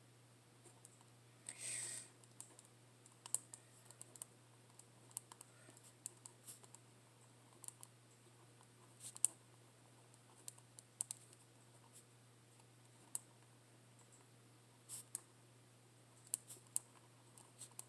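Faint, irregular clicks and taps of someone writing a journal entry, with a short rustle about a second and a half in.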